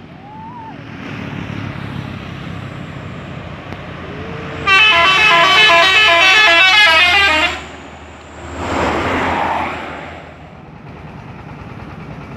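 A telolet multi-tone musical horn plays a quick run of changing notes for about three seconds, around halfway through, over steady traffic noise. Soon after it stops, a vehicle passes with a short swell of engine and road noise.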